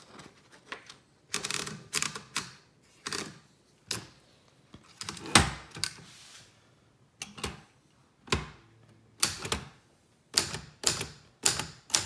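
Late-1930s Remington Rand manual typewriter clacking: single sharp mechanical strikes at an uneven pace, about fifteen in all, the loudest about five seconds in.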